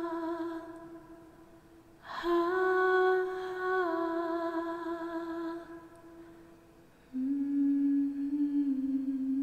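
A woman humming a slow, solemn melody in long held notes that step down in pitch. A new phrase begins about two seconds in, and a lower note is held from about seven seconds in.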